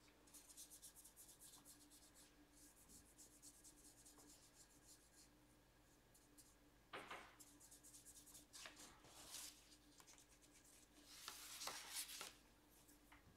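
Faint scratchy rubbing of a fine paintbrush stroked over watercolour-pencil colouring on paper. There are louder brief rustles about seven seconds in and twice near the end as the sheet is handled and turned on the desk.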